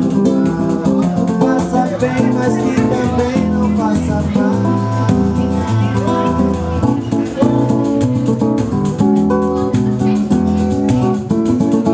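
Instrumental break of a song: guitar strumming chords, with steady rattling percussion keeping the beat.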